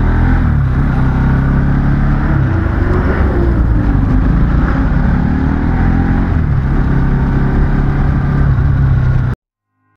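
A two-wheeler's engine running while riding, its pitch rising and falling with the throttle over a dense low rumble. It cuts off suddenly near the end.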